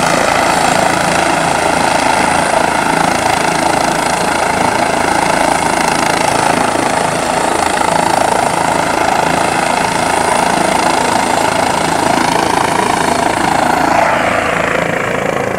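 Air-ambulance helicopter running on the ground with its rotor turning, a loud, steady turbine whine and rotor drone.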